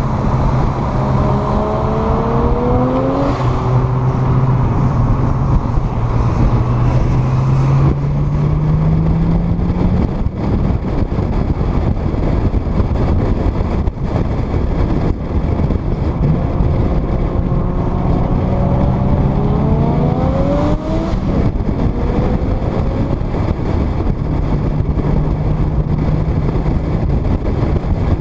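Car engine accelerating hard, its pitch climbing through the gears twice with brief breaks at the shifts, under heavy wind rushing over a car-mounted microphone at highway speed.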